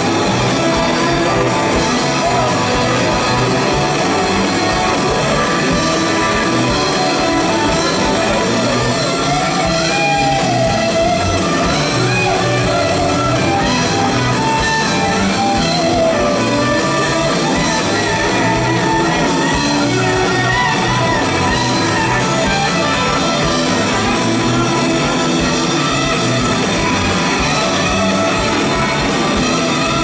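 Live rock band playing loud and steady: two electric guitars, electric bass guitar and drum kit, heard from the audience in a hall. A melody line bends up and down in pitch about ten seconds in.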